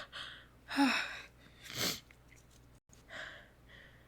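A woman sneezes: a gasping "ah" intake about a second in, then a short, sharp sneeze burst just before two seconds, followed by a couple of soft breaths.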